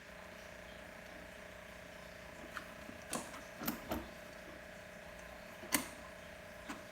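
Short clicks and knocks of parts being handled and fitted, a pressure washer's wheel being pushed onto its axle, several from about halfway in, over a faint steady hum.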